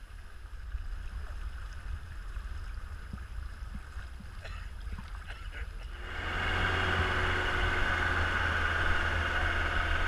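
Fast-flowing floodwater rushing past, with wind rumbling on the microphone. The rush gets louder and fuller about six seconds in.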